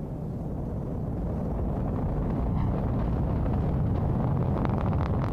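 Ariane 5 ECA rocket in ascent: deep, steady rumble of its Vulcain main engine and two solid rocket boosters, heard from the ground and swelling slightly in the first couple of seconds, with crackling from the exhaust starting near the end.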